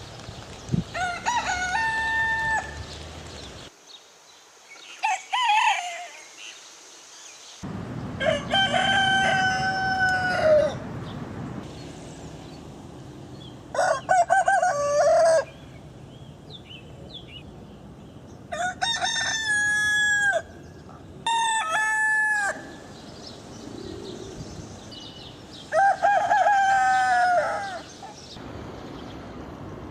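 Roosters crowing: about seven separate cock-a-doodle-doos, each a second or two long, from spliced recordings. The background noise changes between them.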